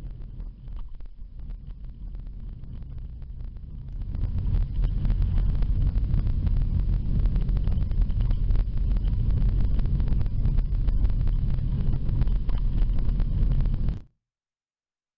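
A car driving along a road, heard from inside the cabin as a steady low rumble of road and engine noise with wind on the microphone. It grows louder about four seconds in and cuts off abruptly near the end.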